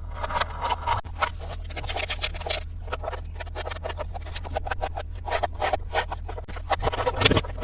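Toy-set packaging being handled and opened: dense, irregular crackling and rustling, over a steady low hum.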